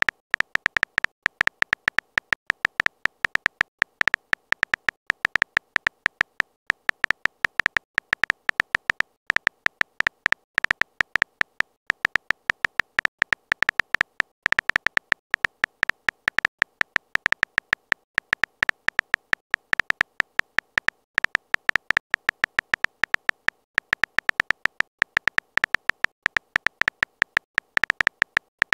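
Phone on-screen keyboard key clicks: a fast, uneven run of short taps, several a second, with brief pauses now and then, as a text message is typed out.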